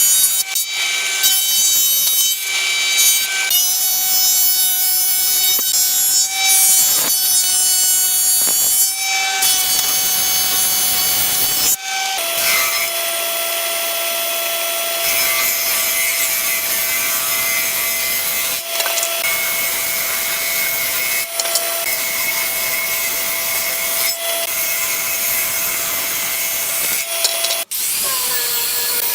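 Power saw cutting wood: a steady whining cut with a rasping noise, broken by several abrupt stops and shifts in pitch.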